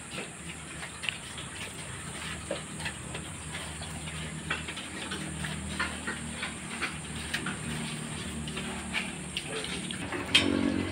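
Weaned piglets feeding on Madre de Agua leaves: scattered soft munching crunches and clicks over a steady hiss, with a louder bump near the end.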